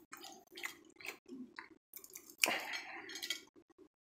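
Fingers twisting and peeling the hard shell of a boiled crawfish: faint, irregular crackles and clicks, with a louder crackle about two and a half seconds in.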